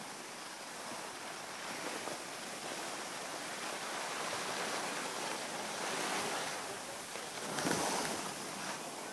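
Skis hissing and scraping over the snow through turns, with wind rushing over the microphone; the rush swells and eases, with a louder surge near the end.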